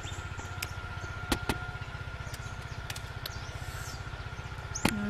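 An engine running steadily, a low even throb of about ten beats a second, with a few soft clicks over it.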